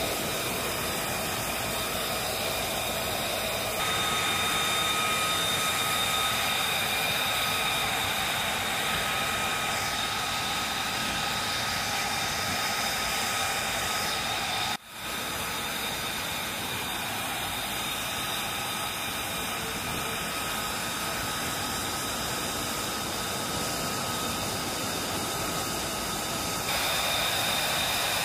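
F-35B's Pratt & Whitney F135 turbofan idling on the ramp: a steady jet whine of high, even tones over a rushing hiss, with a momentary dropout about 15 seconds in.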